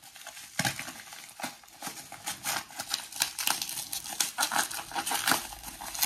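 Packaging crinkling and rustling by hand, with irregular sharp clicks and crackles, as a mailed package of coins is unwrapped.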